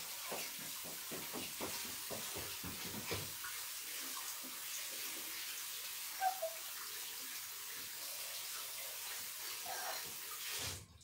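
Water running steadily from a tap while hands are washed under it, with some splashing in the first few seconds; the tap is turned off near the end.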